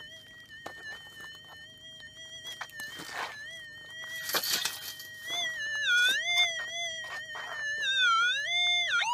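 Minelab pulse-induction gold detector's tone, steady at first. About halfway through it starts to waver, dipping and rising in pitch and getting louder as the coil is swept over a target: the detector going off on a signal.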